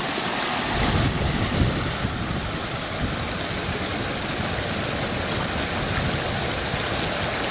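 Shallow creek rushing and splashing over rocks and boulders, a steady close-by rush of water.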